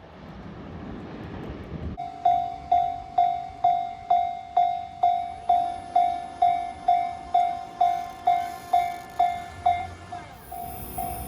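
Japanese railway level-crossing warning bell ringing its 'kan-kan' alarm, evenly spaced strikes a little over two a second, after about two seconds of train running noise. A high hiss joins near the end.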